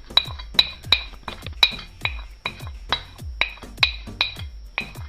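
A spoon knocking against a ringing mixing bowl about two to three times a second, each clink with a short bell-like ring, as spices are tapped into it.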